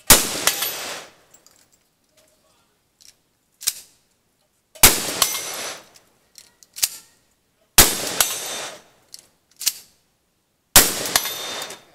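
Four loud gunshots from a long gun, about three seconds apart, each trailing off for about a second. Between shots come quieter sharp clicks as the action is worked, each about a second before the next shot.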